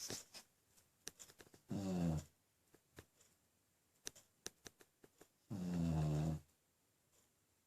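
A sleeping beagle snoring twice, about four seconds apart. The first snore is short and drops in pitch; the second is longer and steadier.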